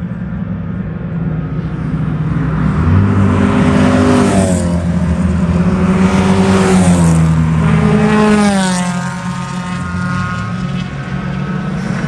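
Racing car engines on a circuit, revving up through the gears as they pass: the engine note climbs twice. It is loudest in the middle and then fades.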